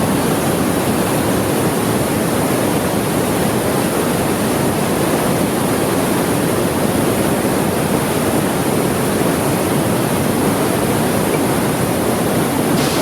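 Roar of Niagara Falls: a loud, steady rush of falling water that does not change.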